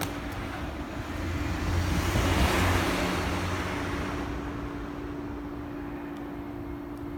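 A road vehicle passing, its noise swelling to a peak about two and a half seconds in and then fading away.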